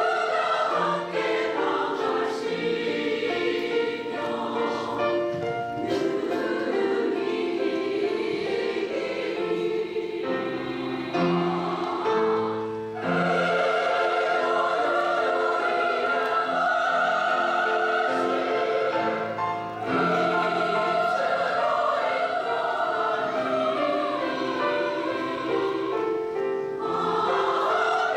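Women's choir singing in parts, sustained sung notes in several voices at once, with a short break between phrases about thirteen seconds in.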